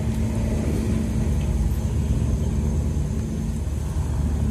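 Steady low rumble with a constant hum, like a nearby engine running.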